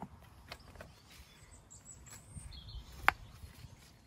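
Stone knocking against stone as stones are set by hand in a dry stone wall: a few light clacks, then one sharp stone-on-stone knock about three seconds in.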